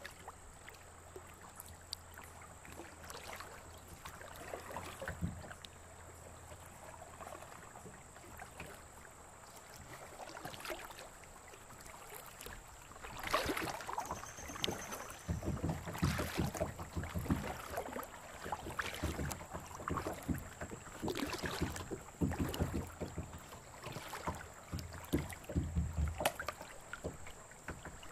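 Kayak paddling on a creek: the paddle blades dip and splash in the water, faint at first, then regular strokes about a second apart with low knocks under them from about halfway on.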